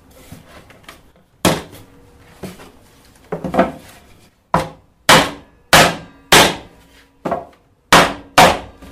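Wooden mallet striking a wooden block to knock the glued hive-box pieces down into each other: about ten sharp blows, irregular at first and then coming about every half second in the second half.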